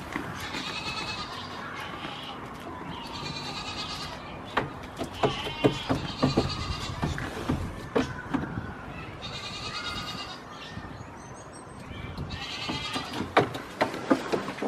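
Goat kid bleating about five times, each call lasting about a second with a fluttering waver. Sharp clicks and knocks come between the calls, in a cluster near the middle and again near the end.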